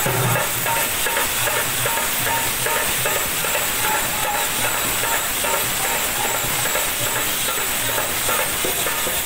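Devotional bhajan music: a two-headed barrel drum beaten by hand, under a steady hissing wash of metallic jingling, with harmonium and group voices.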